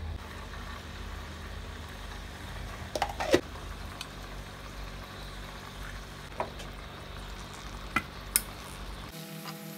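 Leafy greens stir-frying in a steel wok, with a steady low sizzle and hum. A few sharp clinks of utensils against the wok, the loudest about three seconds in.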